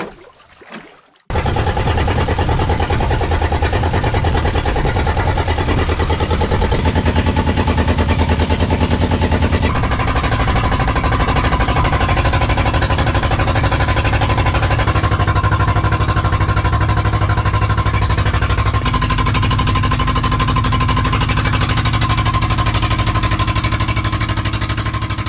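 A boat engine running steadily, a loud even drone with a fast pulse that starts abruptly about a second in and shifts to a new pitch a few times.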